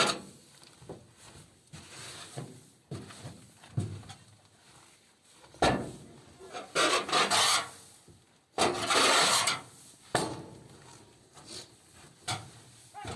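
Irregular scraping or rubbing strokes, a few seconds apart, louder in the second half.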